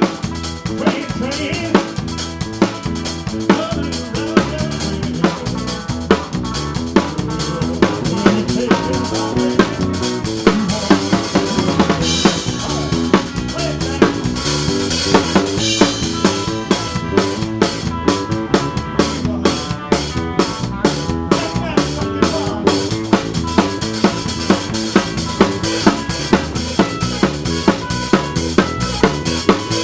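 Yamaha drum kit played live with a band, the kit close and loudest: a steady beat of bass drum and snare hits with cymbals, over the rest of the band.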